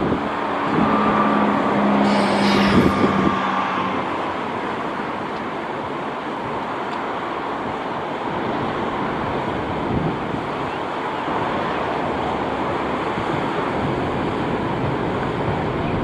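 Steady noise of wind and surf, with a motor vehicle's engine hum passing in the first four seconds.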